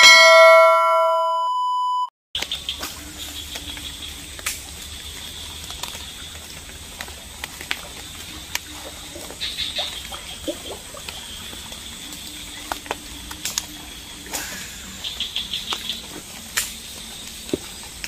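A loud bell-like notification chime of several ringing tones from a subscribe-button sound effect, cut off abruptly about two seconds in. Then quiet swamp-forest background: a steady hiss with a high chirring and short chirp trains, and a few sharp clicks.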